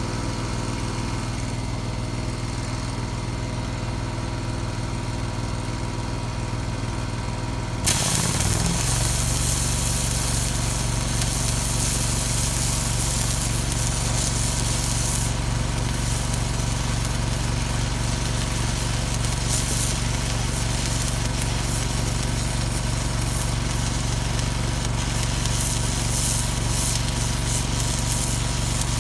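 An engine runs steadily. About eight seconds in, a welding arc is struck and a steady crackling hiss of arc welding runs on as hardfacing is laid onto the steel bucket, while the engine note shifts and settles as if taking on load.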